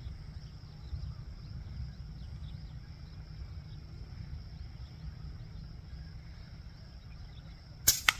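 A steady high insect drone with low wind rumble runs throughout. Near the end a PCP air rifle fires once with a sharp crack, followed a fraction of a second later by a second, smaller snap.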